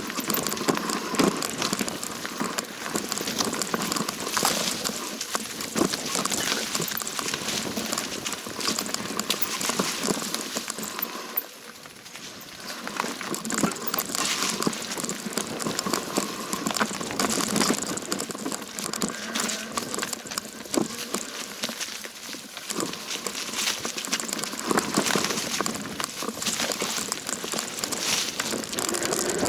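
Bicycle rolling down a rough dirt trail: tyres crackling over dirt, gravel and leaves, with the bike rattling. It eases off briefly about twelve seconds in.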